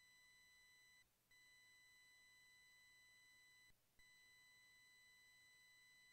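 A very faint, steady high-pitched electronic tone that briefly drops out twice, about a second in and about four seconds in.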